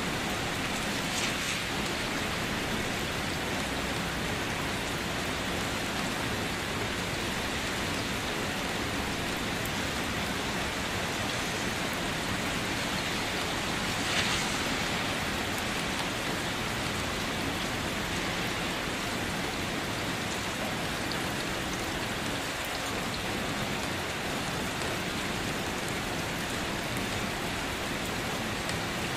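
Steady heavy rainfall, a continuous even hiss of falling rain, with two brief louder spots, one about a second in and one about halfway through.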